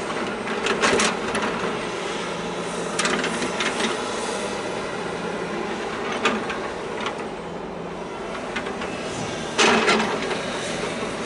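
Steady engine drone of harbour craft, with three short, louder noisy bursts: about a second in, around three seconds in, and near the end.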